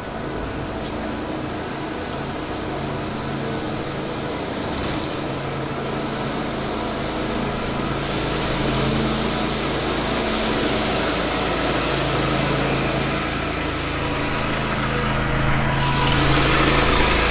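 An engine running steadily, growing louder over the second half.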